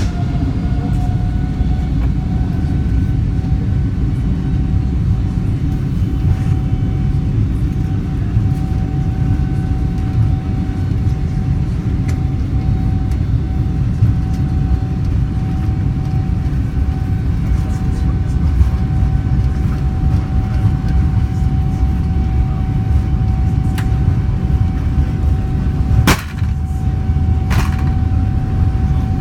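Boeing 777-300ER's GE90 engines at high thrust, heard inside the cabin: a steady high fan tone over a heavy low rumble from the wheels on the runway during the takeoff roll. Scattered small cabin rattles, and one sharp knock near the end.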